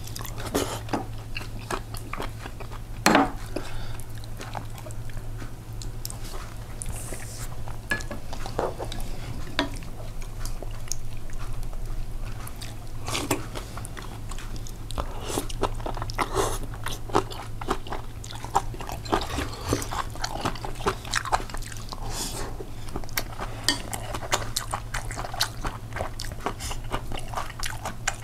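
Close-up eating sounds: chewing and biting with crunchy bites, broken by many short sharp clicks, over a steady low hum.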